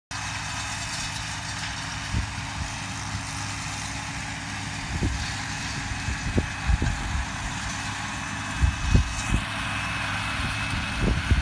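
An engine running steadily with a low hum, with scattered low thumps on the microphone that come more often towards the end.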